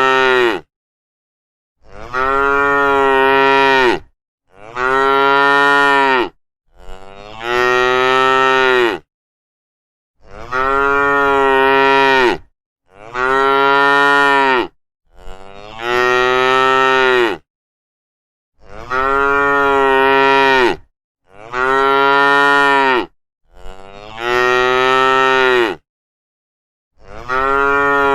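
Cow mooing again and again, about eleven long moos of roughly two seconds each, every one rising at the start and then holding its pitch, with dead silence between them.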